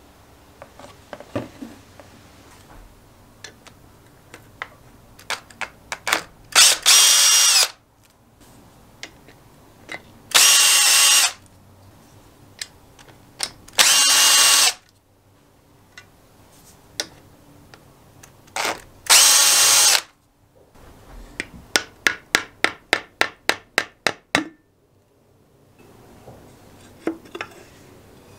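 Cordless drill with a socket spinning out the side-cover bolts of an old lawnmower engine, in four short bursts of about a second each, with small metal clinks between them. Near the end comes a run of about a dozen quick clicks, about four a second.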